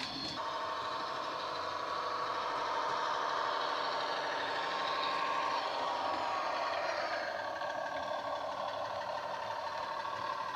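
Class 150 diesel multiple unit engine sound played by an SWD DCC sound decoder through a 27mm bass-enhanced speaker in a Bachmann OO-gauge model, running steadily, with a change in the engine note about two-thirds of the way through.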